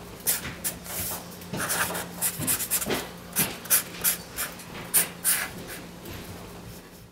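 Felt-tip marker drawing on a white surface: a quick, irregular run of scratchy strokes and short squeaks that thins out toward the end, over a faint steady hum.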